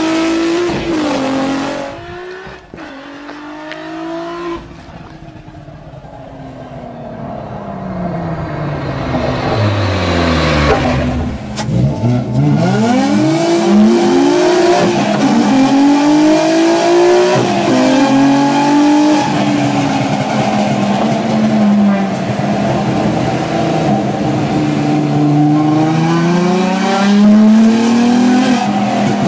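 Car engine heard from inside the cabin, winding down slowly, then revving hard up through the gears in several quick rising sweeps, each broken by a gear change. After that the revs rise and fall as the car is driven.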